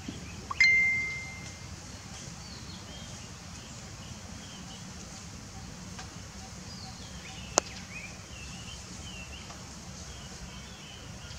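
Outdoor ambience with faint, scattered bird chirps. About half a second in, a sharp ping with a steady ringing tone fades over about a second, and a single sharp click follows a little past the middle.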